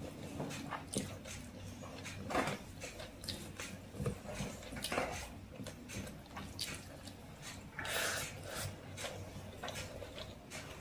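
Close-miked eating sounds: wet chewing and lip smacking, with squishes and clicks of fingers mixing rice and chicken curry on a plate. The strokes come irregularly, several a second.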